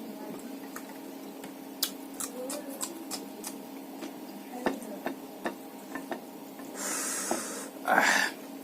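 Close-up eating sounds: chewing with wet mouth clicks and smacks scattered through, and two longer noisy rushes near the end, over a steady low hum.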